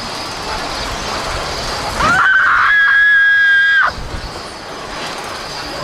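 A person's loud, high scream, held on one pitch for about two seconds, starting about two seconds in and cutting off abruptly, over a steady background noise.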